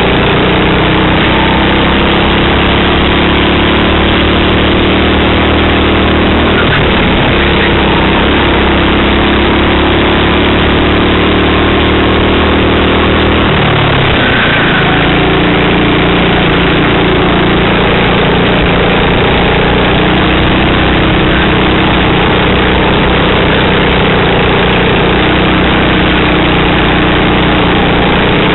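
Racing kart engine running hard at speed, heard onboard under a loud steady rush of wind noise. The revs fall away sharply twice, about 7 and 14 seconds in, as the kart brakes for corners, then build again.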